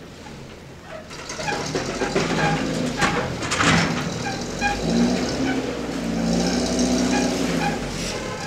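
Cargo truck engine running at low speed as the truck reverses slowly across a yard, growing louder from about a second in as it comes closer. A short hiss a little after three seconds in.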